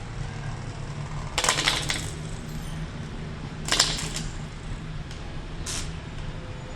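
Spinning tops colliding: three short clusters of sharp clinks, about two seconds apart, over a steady low hum.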